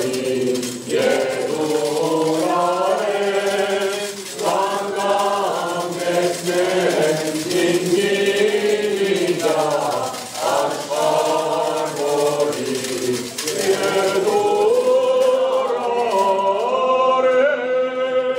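A choir singing without instruments, in long held phrases with short breaks between them.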